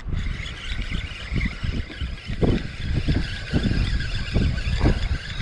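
Wind buffeting the microphone with a steady low rumble, while choppy lake water slaps against a kayak hull in short splashes every half second to a second.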